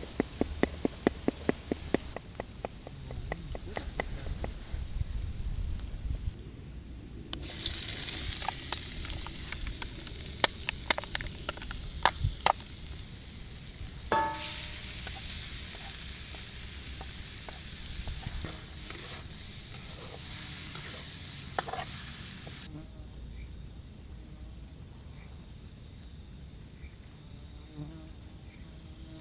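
Food sizzling in a pan on a camp stove, starting suddenly about a quarter of the way in and running for about fifteen seconds, with scattered clinks and scrapes of cookware and one short ringing clink in the middle. A quick run of clicks opens it, and crickets and other night insects chirp faintly near the end.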